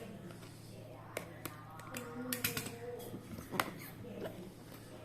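A phone and its packaging being handled: several sharp clicks and taps, a quick cluster of them about halfway through, with faint voices in the background.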